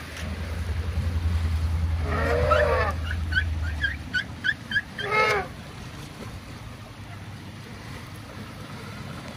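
Asian elephants calling: a drawn-out trumpet-like call about two seconds in, a quick run of short high chirps, then a shorter trumpet-like call about five seconds in. A low rumbling noise runs under the first four seconds.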